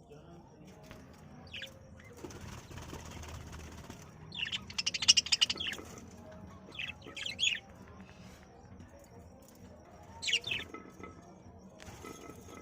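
Budgerigars chirping and chattering in several short bursts, the busiest run about four to six seconds in, with the flutter of wings.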